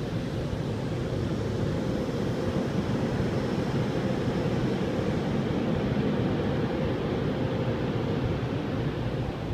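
Touchless car wash's high-pressure water and soap spray hitting the car, heard from inside the cabin as a steady rushing noise with a faint steady hum underneath.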